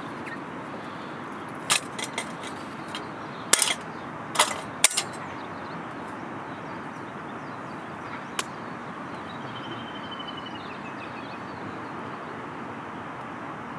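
Steady rushing of river water, with a handful of sharp clicks and knocks between about two and five seconds in and one more near eight seconds.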